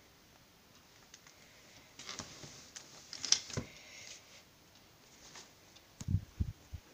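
Handling noise from a handheld phone being moved about: scattered rustles and small clicks, one sharper click a little past the middle, and a few dull bumps near the end as a hand comes over the phone.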